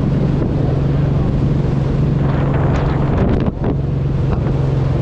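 Motorcycle engine holding a steady note while riding, buried in heavy wind rush on the microphone. About three and a half seconds in, the sound breaks briefly with a few sharp clicks, then the steady note and wind carry on.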